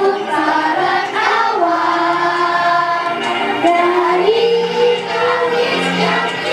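A group of children singing a song in Indonesian, with backing music.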